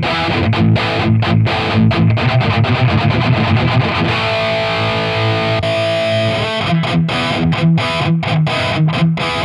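Distorted electric guitar, a Heritage single-cut, playing a lower-gain riff of short, choppy chords with the boost pedal off, through a Marshall 1960A 4x12 cabinet. A chord rings out in the middle, and about halfway through the sound switches from the old, worn cab to a brand-new 1960A.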